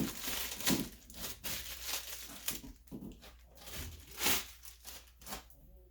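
Irregular rustling and short knocks of packaging and steel body hammers and dollies being handled while a kit is unpacked.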